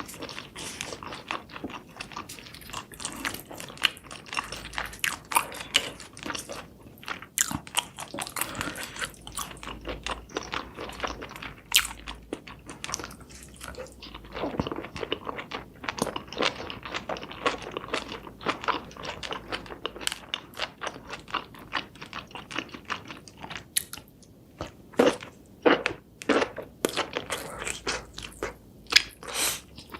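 Close-miked chewing and biting of cooked seafood, with a dense run of wet clicks and crunches and a few louder bites.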